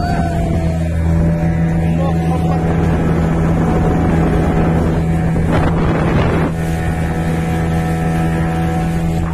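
Engine of a small open motorboat running steadily at speed, with water rushing past and wind on the microphone. A brief louder rush of noise about six seconds in.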